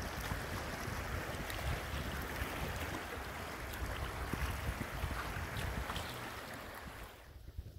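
Fast river water rushing and splashing around a kayak's bow through choppy current, with wind buffeting the microphone. The sound drops off sharply near the end.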